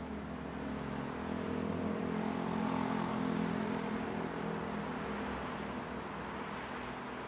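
Road traffic: a motor vehicle's engine hum grows louder, is loudest about three seconds in, then fades as it passes, over a steady background of traffic noise.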